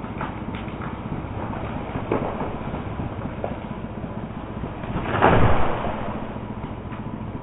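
A felled fir tree coming down: cracking and snapping early on as it goes over, then the crash of the trunk and branches hitting the snowy ground about five seconds in, the loudest sound. An engine idles steadily underneath.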